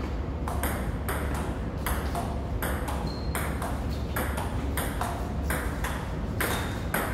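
Table tennis rally: the ball struck back and forth by the paddles and bouncing on the table, a quick, regular clicking about two to three times a second.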